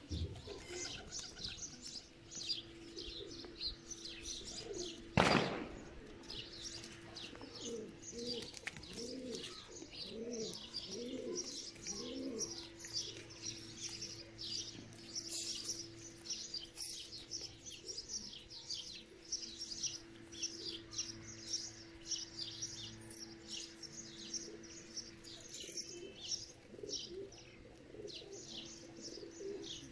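Domestic pigeons cooing in a run of low coos, with many small birds chirping quickly and constantly over them and a steady low hum underneath. One sharp knock about five seconds in.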